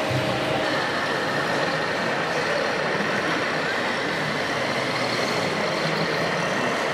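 1:16 scale radio-controlled T-150K tractor model running as it drives and pushes soil with its front blade: a steady mechanical running noise with a faint high whine that rises slightly.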